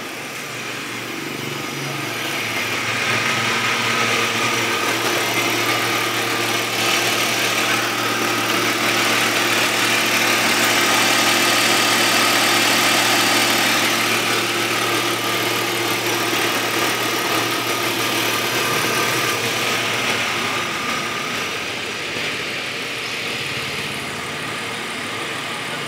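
BMW X5 engine idling steadily under the open bonnet, getting louder toward the middle and easing off again near the end.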